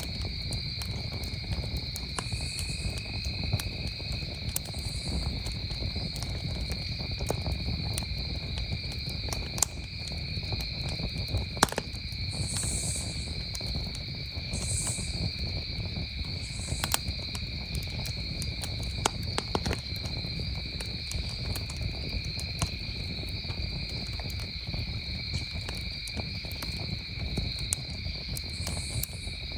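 Campfire crackling with scattered sharp pops and a low steady rumble, under the continuous chirring of crickets at two pitches; a higher insect buzz comes in short pulses every couple of seconds at times.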